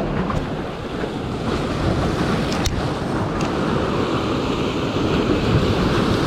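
Rough sea surf washing and breaking, with wind buffeting the microphone.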